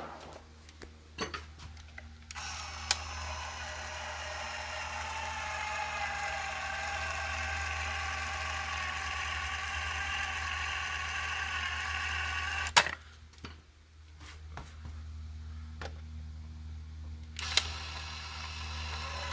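Ryobi 18V cordless caulking gun's motor whining steadily as it drives the plunger through a tube of thick two-part concrete anchoring epoxy. It runs for about ten seconds, stops with a sharp click, and starts again with a click near the end.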